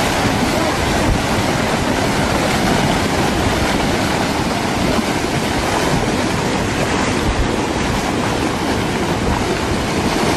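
Hot volcanic mudflow (lahar) of steaming mud and debris rushing down its channel, a loud, steady rushing noise.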